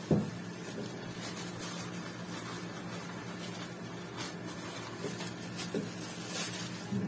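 Steady low mechanical hum, like a small motor or fan, with a short knock right at the start and a few faint light clicks later on.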